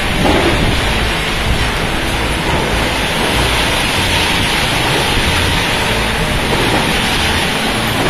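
Heavy rain pouring down in a strong windstorm, a loud, steady rush with the wind buffeting the microphone.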